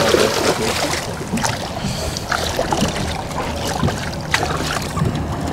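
Steady wind and water noise around a small fishing boat, with a few faint clicks and knocks.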